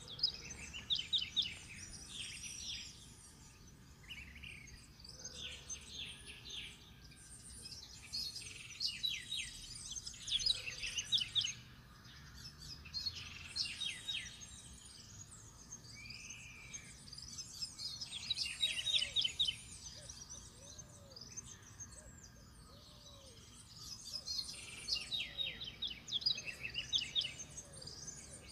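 Forest birds singing: bouts of fast, high chirping come every few seconds. About two-thirds of the way in, a lower call is repeated several times.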